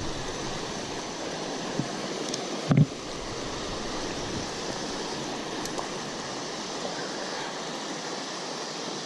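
Creek water flowing in a steady rush, with one short low thump a little under three seconds in.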